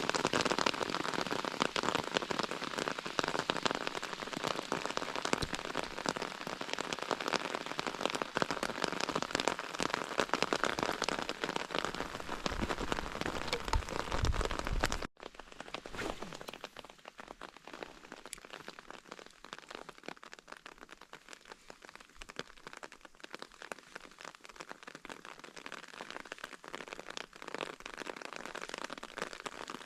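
Rain falling, with many drops hitting close to the microphone. It is heavier and louder in the first half, then abruptly lighter and quieter about halfway through.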